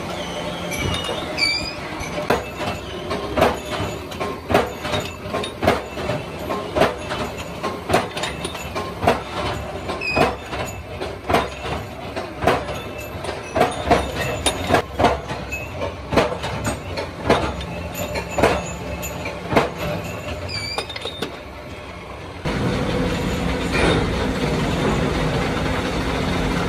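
Short steel bars clanking against one another and against a metal pan as they are handled and tossed in beside a running drill press: repeated sharp metallic knocks, roughly one a second, over a low steady machine hum. About four seconds from the end this gives way to the steadier hum of lathes running.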